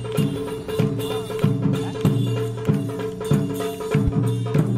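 Music with a steady percussion beat, a little under two beats a second, over a held tone.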